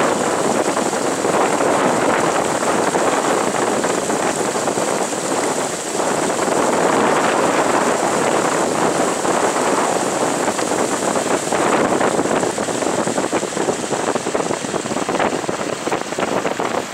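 Hailstorm runoff gushing out of a corrugated culvert pipe in a steady rushing stream.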